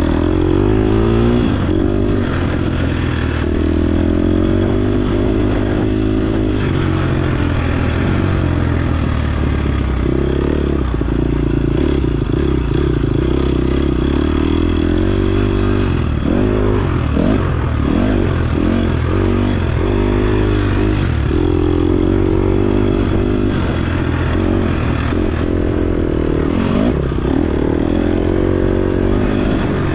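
KTM 250 XC-F single-cylinder four-stroke dirt bike engine ridden hard, revving up and dropping back over and over as the rider works the throttle and gears, with some clatter from the bike.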